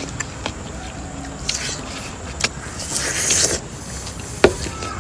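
Wet, crunchy bites and chewing of watermelon come in short bursts, with a longer one about three seconds in and a sharp click near the end, over a steady low rumble.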